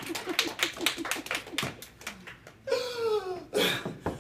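A quick, even run of low pulses, about six a second, stops about a second and a half in. Near the end a man lets out a falling groan, then a loud breathy gasp as he stirs from lying on the floor.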